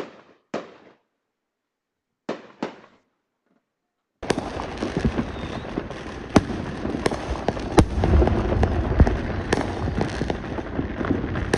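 Many fireworks going off at once: a few separate bangs, then from about four seconds in a continuous dense crackle studded with sharp bangs.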